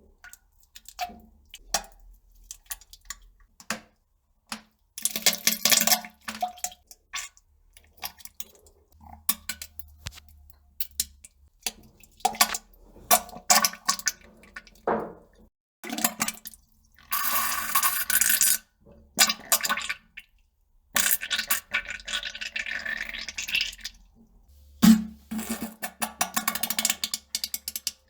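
Someone on a toilet: intermittent drips, small plops and splashes into the bowl water, with several noisy bursts of flatulence lasting one to three seconds each.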